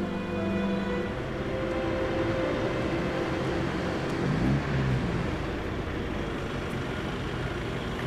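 Car workshop background noise: a steady wash of machinery and vehicle sound, with a short pitched sound that shifts in pitch about four and a half seconds in.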